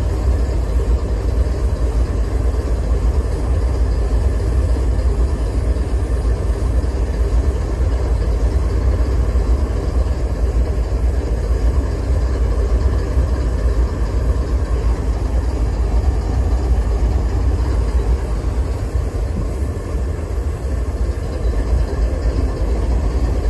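GE diesel-electric freight locomotives idling, a steady low engine rumble.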